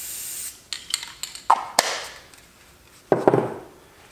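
Aerosol spray paint can hissing as paint is sprayed onto cardboard, cutting off about half a second in. Then a few sharp clicks and knocks as the metal can is set down on the plywood bench, and a short rustle about three seconds in.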